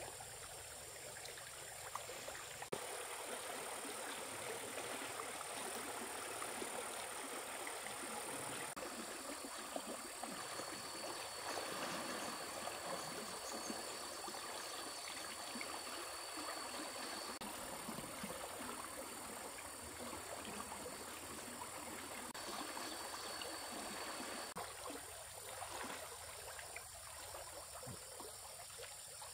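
Stream water flowing and trickling steadily. A thin, steady high tone runs through the middle part.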